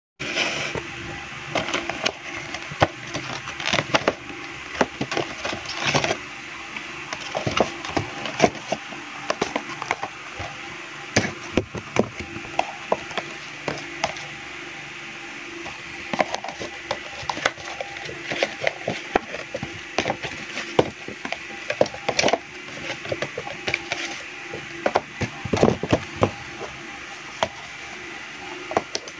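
Cardboard Happy Meal box and small toy boxes being handled and opened by hand: irregular crackling, tapping and scraping of card, over a steady background hiss.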